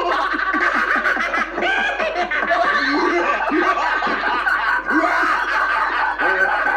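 Several people laughing together, a steady run of overlapping chuckles and laughs at different pitches, in response to a joke.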